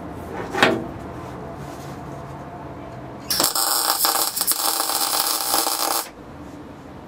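MIG welder laying a plug weld (rosette) into a sheet-steel floor pan: a single burst of steady arc crackle, starting about three and a half seconds in and lasting a bit under three seconds, then stopping sharply.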